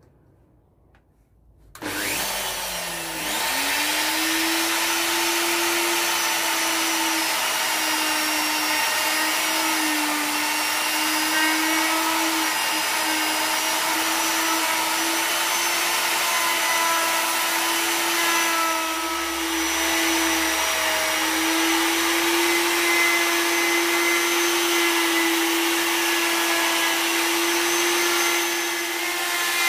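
Bosch GOF 1700 ACE plunge router starting up about two seconds in, then running with a steady high whine as its 19 mm cutter routes a recess into a log slice. Its pitch sags slightly now and then as the cutter takes load.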